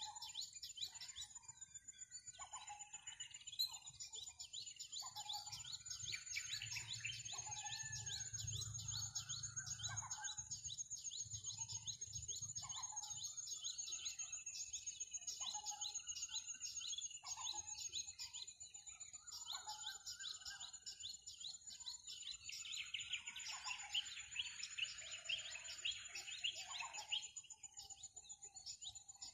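Many small birds chirping and calling, with short calls repeating about once a second, over a steady high-pitched tone. A few seconds of dense twittering come near the end.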